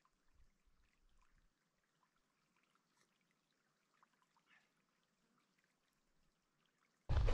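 Near silence, with faint ambient hiss and a few scattered faint ticks. About seven seconds in, a loud rush of wind on the microphone cuts in abruptly.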